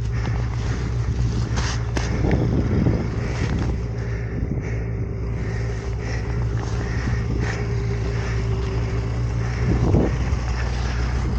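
Snowmobile engine running at a steady pitch, with a few brief knocks.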